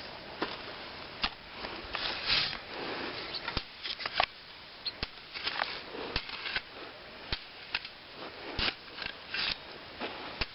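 Scattered sharp clicks and short gritty scraping rustles as a Kalashnikov rifle is handled and sand is worked over it.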